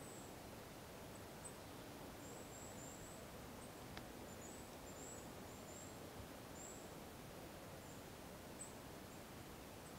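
Quiet woodland background with faint, very high-pitched chirps from a small bird, repeated many times, and a single sharp click about four seconds in.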